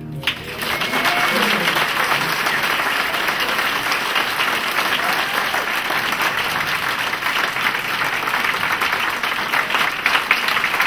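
A roomful of people applauding, breaking out just as a sung final note stops, and going on as steady, dense clapping.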